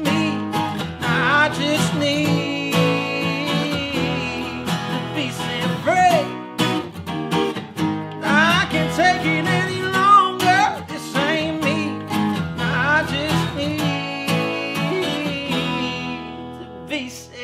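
Two steel-string acoustic guitars strumming and picking chords while a man sings over them in long, wavering lines. The playing thins and drops in level near the end.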